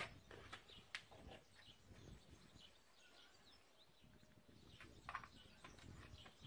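Near silence with faint bird chirps, broken by a few soft clicks and rustles of a plastic safety helmet and cardboard box being handled, the sharpest about a second in and about five seconds in.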